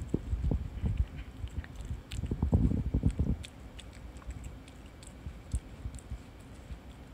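A cat chewing and licking at a soft koppepan bread roll held right at the microphone: dense wet bites and thumps for the first three seconds or so, then softer, sparser licking clicks.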